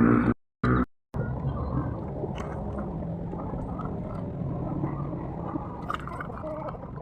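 A poultry flock calling and clucking, many birds overlapping into a steady murmur. The sound drops out to dead silence twice, briefly, within the first second.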